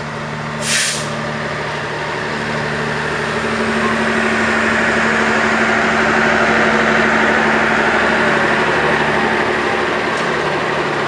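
GE CC206 diesel-electric locomotive's engine running as it moves slowly past during shunting, its steady drone growing louder as it nears. A short sharp hiss comes about a second in.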